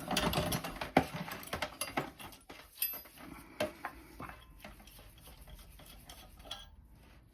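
Wrenches and small metal burner parts clinking and knocking irregularly as the oil burner nozzle is wrenched loose from its fitting. The sharpest knocks come about a second in and around three and a half seconds, and the clinks thin out and fade near the end.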